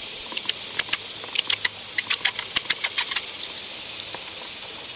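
A goose's bill nibbling and pecking at a rubber clog: a quick, irregular run of sharp clicks for about three seconds, which then stops, over a steady hiss.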